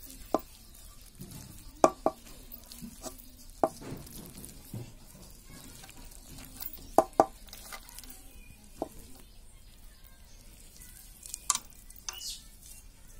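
Boiled potatoes being squeezed and mashed by hand in a pan: soft squishing with several sharp, irregular clicks and taps, two of them coming in quick pairs.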